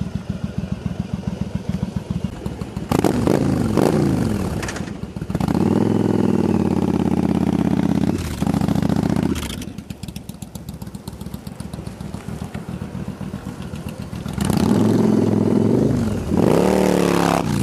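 2002 Yamaha V Star 1100 Classic's air-cooled V-twin, first idling with a quick even pulse, then revving and pulling away with rising pitch. It fades for a few seconds, then comes back loud, accelerating with rising pitch near the end.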